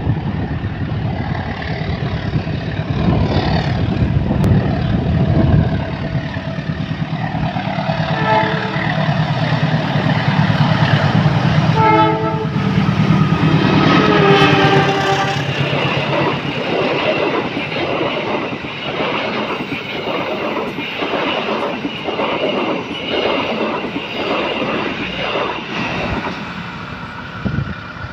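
A CC 201 diesel-electric locomotive passes close by with its engine running, and a train horn sounds in several blasts around the middle. The carriages then clatter past, their wheels clicking over the rail joints in a steady rhythm that fades near the end.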